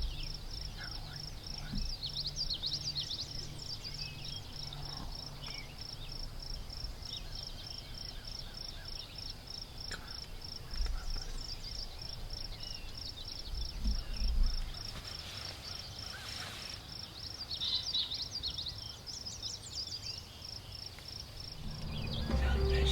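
Open-field ambience: a high, evenly pulsing insect-like trill runs throughout, with songbirds chirping over it and scattered low thumps of wind on the microphone. A louder sound sets in just before the end.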